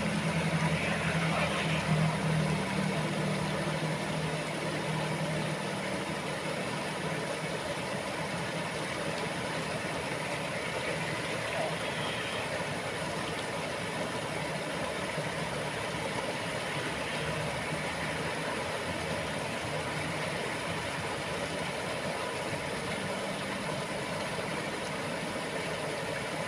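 Steady rush of water pouring over a low concrete canal weir, with a low hum that is strongest in the first few seconds.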